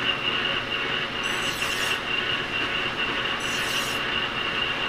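A hand file stroked across the chrome-plated journal of a steel shaft turning in a lathe, bringing the journal down to size: two rasping strokes about two seconds apart, over the running lathe's steady high whine.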